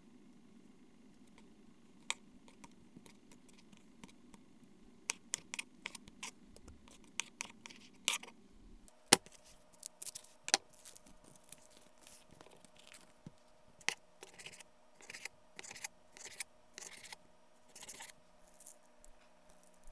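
Chef's knife cutting on a cutting board, with sharp knife clicks and scrapes. First it slices raw chicken tenders. About nine seconds in, the loudest click comes as the blade opens a plastic tray of Italian sausage, and then it chops the sausage links into pieces.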